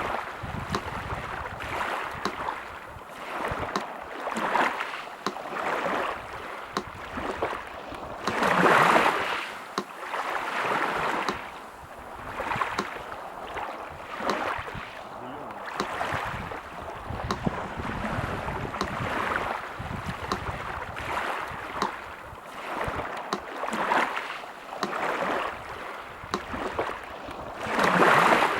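Sea surf washing in and drawing back in swells every few seconds, the biggest waves about nine seconds in and near the end, with a metronome ticking steadily and faintly over it.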